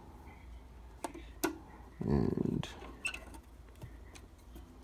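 A few light, sharp clicks and taps of small hardware being handled, as the screws go back into an ECU's case, over a faint low hum.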